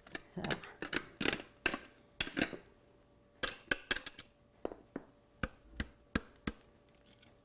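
A potato being grated on a metal box grater: short rasping strokes about two a second, then a few sharp taps and clicks against the grater and cutting board.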